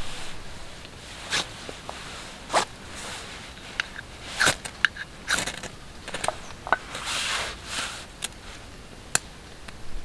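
Dry wood shavings and bark crunching and rustling as they are handled, and a knife spine scraped along a ferro rod in a series of short, sharp rasps to throw sparks into the tinder.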